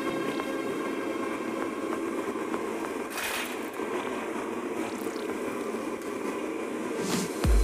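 Steady droning background noise of kitchen machinery, with a faint hum running through it and a brief swish about three seconds in.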